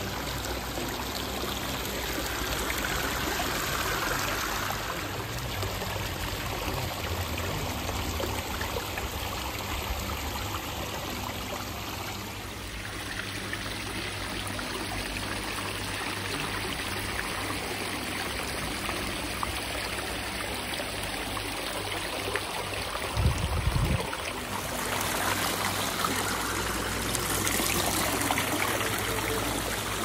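Small rock waterfalls splashing and trickling into a garden pond: a steady rush of falling water whose tone shifts twice as different falls are heard. A brief low thump comes about 23 seconds in.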